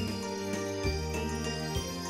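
Background music: a light tune with jingling bells over sustained notes, the bass note changing about once a second.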